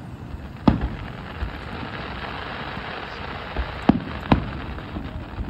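Aerial fireworks bursting: three sharp bangs, about a second in and two close together near four seconds, over a steady hiss.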